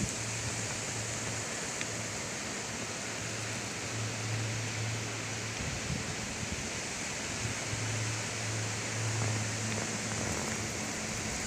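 Steady, even hiss of outdoor bush background noise, with a low hum that fades in and out.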